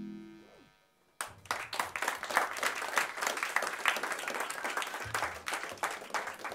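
An electric bass guitar's last note fading out, then, after a brief pause, an audience applauding, the clapping thinning out near the end.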